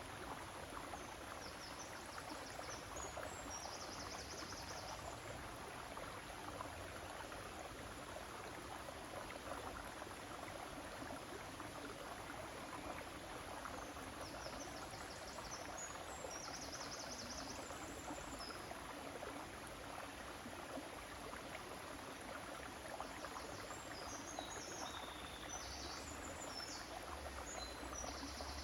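River water flowing steadily, a continuous rushing noise. Faint high chirping comes in three short spells: near the start, around the middle and near the end.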